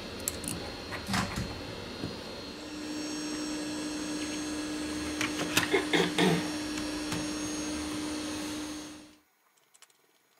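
Light clicks and taps of small phone parts and a precision screwdriver being handled on the workbench, with a cluster of sharper clicks about six seconds in. Under them runs a steady machine hum that starts about two and a half seconds in and cuts off abruptly near the end.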